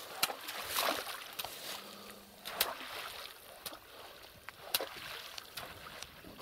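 Wooden poles slapping and splashing the river surface in a series of irregular strokes over the sound of moving water: the water is being beaten to scare fish into a set net.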